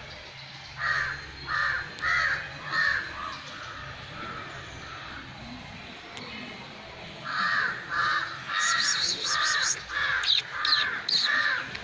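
Crows cawing in repeated series of short, harsh caws: four caws in the first few seconds, then a longer, faster run of about eight from around seven seconds in.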